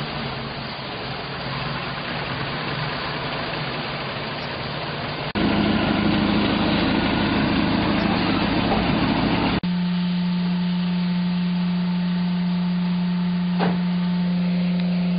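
Volvo Penta 3.0 GL four-cylinder sterndrive engine running steadily. The sound jumps abruptly about five seconds in and again near ten seconds, ending as a smoother, even hum.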